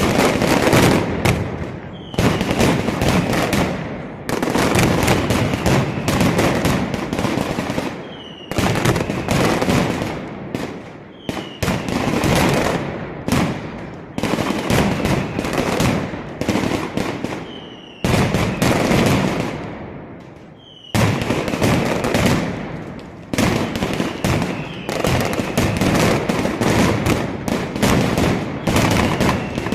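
Mascletà pyrotechnics: strings of firecrackers going off in a dense, continuous rattle of bangs that comes in waves. It eases off shortly before twenty seconds in, then starts up again suddenly.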